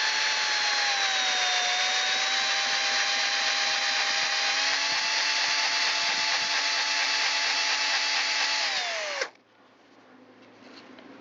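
Electric drill running a 1/8-inch twist bit into a broken allen bolt under light pressure, a steady motor whine that dips slightly about a second and a half in, then holds. About nine seconds in the drill stops and winds down. The bit is a little too dull to cut well.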